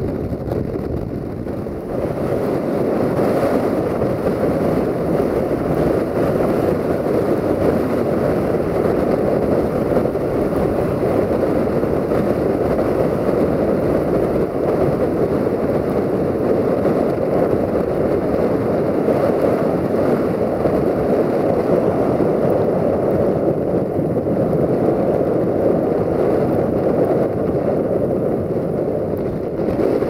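Blizzard wind buffeting the microphone: a steady, loud rushing noise that rises slightly about two seconds in.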